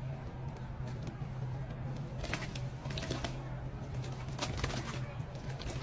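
Crumbly sand-cement chunks being crushed, giving short crunches about two seconds in, again around three seconds, and a cluster near four and a half seconds, over a steady low hum.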